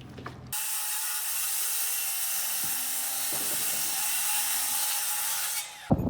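Steady, hiss-like mechanical noise that starts abruptly about half a second in and cuts off sharply just before the end.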